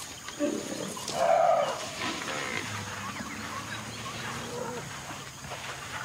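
Asian elephants calling while sparring: a loud call about a second in, with lower, fainter calls after it.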